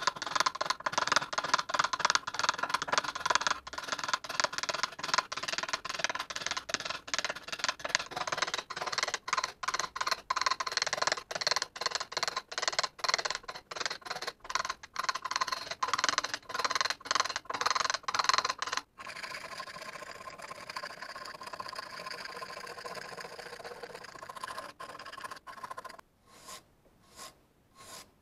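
A steel chisel scrapes rust and scale off the face of an old cast-iron clothes iron in quick, repeated strokes. About two-thirds of the way in the sound turns softer and steadier. Near the end it gives way to slow strokes of a steel wire brush, about two a second.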